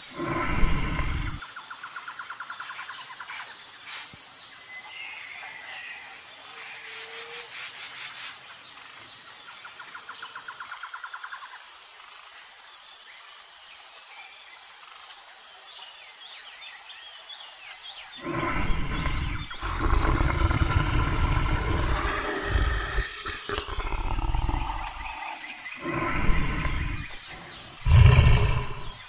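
Deep animal roars: one short burst at the start, then a run of loud, long roars broken by short pauses through the second half. In between, a quieter outdoor background with a rhythmic high trill and faint chirps.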